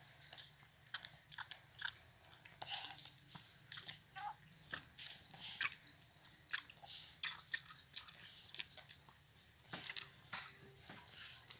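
Faint, irregular sucking clicks and smacks from a baby monkey and a toddler drinking milk from baby bottles, several a second.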